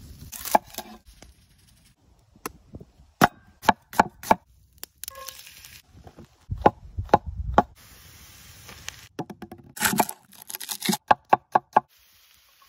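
A knife chopping food against a hard surface: irregular sharp knocks in small groups, ending with a quick run of about six strokes.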